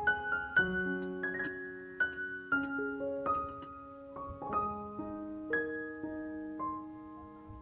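Background piano music: slow, gentle notes struck one after another, each ringing on as it fades.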